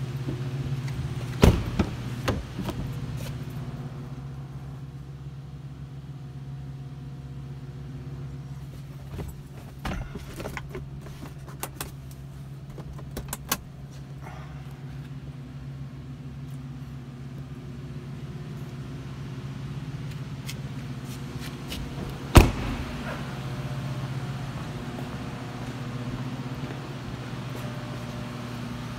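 Doors and interior fittings of a Cadillac Escalade EXT being handled, with scattered clicks and knocks and one loud door slam about two-thirds of the way through. A steady low hum runs underneath.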